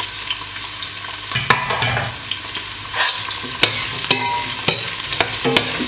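Diced zucchini and red bell pepper sizzling in hot oil in a stainless steel pot. From about a second and a half in, a metal spoon stirs them, scraping and clicking against the pot.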